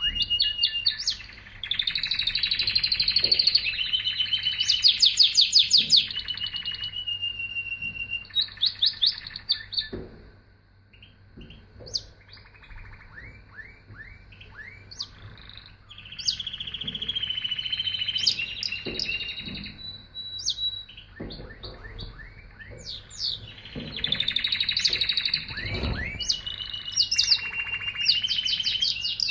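Domestic canary singing long phrases of rapid trills and held whistled notes, with a quieter stretch of scattered short chirps partway through.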